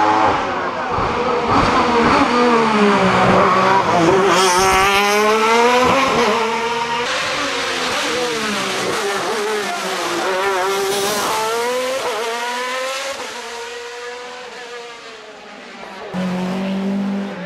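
Alfa Romeo 155 DTM touring car's V6 racing engine at high revs, its note repeatedly climbing and dropping through gear changes and lifts for corners. About a second before the end it settles to a steady, lower engine note.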